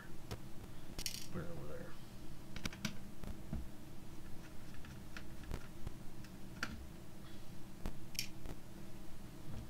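Small screws being taken out of a Dell Inspiron N7110 laptop's motherboard: scattered light clicks and small metallic clinks of a screwdriver, screws and plastic case parts being handled.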